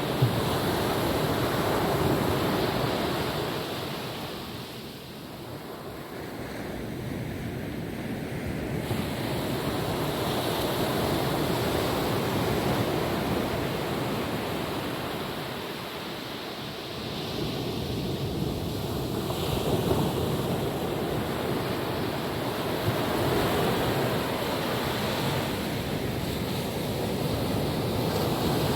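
Ocean waves washing onto a beach, the surf swelling and easing every several seconds, with some wind on the microphone.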